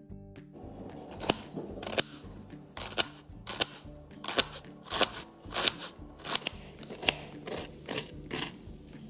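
Kitchen knife slicing a red onion on a wooden chopping board: a steady run of short chops, about two a second, each one the blade cutting through the onion and striking the board.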